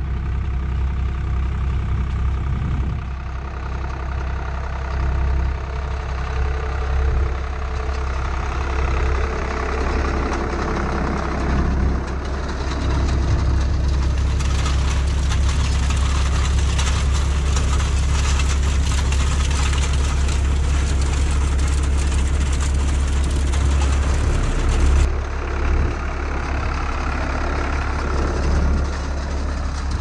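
IHC tractor's diesel engine running steadily under load as it pulls a seed drill across grassland. The drill and its harrow tines add a louder rattling noise through the middle.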